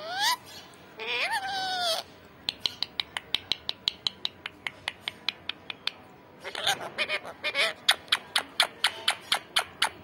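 Indian ringneck parakeet giving two drawn-out calls that bend up and down in pitch in the first two seconds. These are followed by a long run of quick sharp clicks, about three or four a second, with a denser burst of louder clicking notes about two-thirds of the way through.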